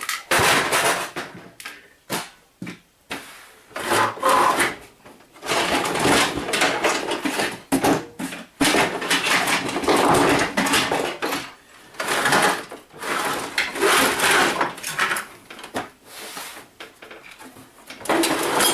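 Plastic and metal printer parts being handled and pulled apart: irregular scraping, rubbing and clattering in stretches of a second or two with short pauses.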